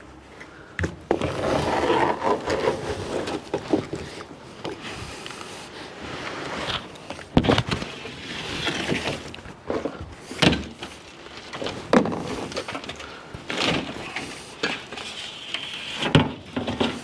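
A car's rear window glass being worked free of its frame: rough scraping and cutting, loudest in the first few seconds, with several sharp knocks and clunks scattered through.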